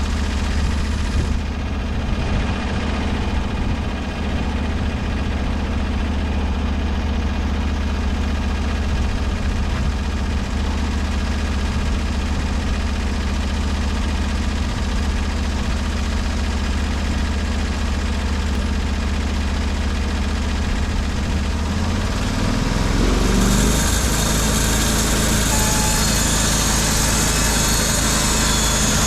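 Portable band sawmill's engine running steadily. A little over 20 seconds in, its note rises and a loud high hiss comes in and stays.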